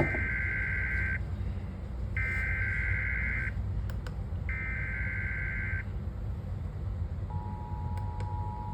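Emergency Alert System SAME header: three one-second bursts of screeching digital data tones, about a second apart. Near the end the steady two-tone EAS attention signal begins, the alert tone that precedes a new spoken warning.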